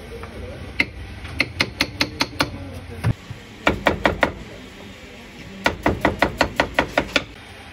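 A large kitchen knife chopping fruit on a round wooden chopping board: quick runs of sharp knocks, about six strikes a second, with short pauses between the runs.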